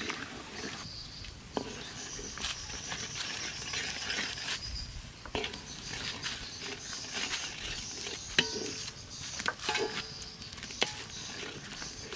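Wooden spatula stirring a thick tomato and egg sauce in a large metal wok, with occasional knocks and scrapes against the pan over a steady high hiss.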